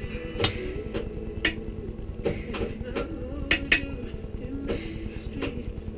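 Short, sharp cracks and taps from metalwork on a boat pedestal's metal tube, about eight of them at irregular intervals, the loudest about half a second in and two close together near the middle.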